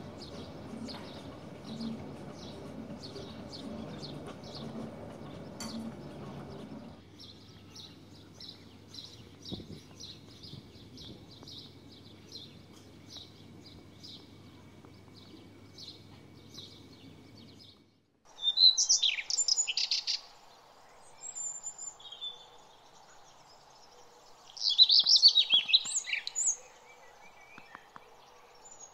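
Songbirds singing: a small bird chirps steadily, about twice a second, over low outdoor background noise, and near the end two louder bursts of bird song break in.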